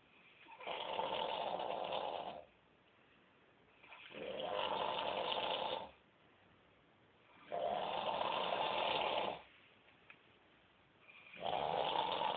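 A man snoring in his sleep: four noisy snores, each about two seconds long, coming about every three and a half seconds.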